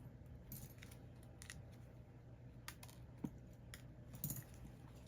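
Faint scattered clicks and light metallic taps from small tools being handled while soldering, about eight of them, with a low steady hum underneath.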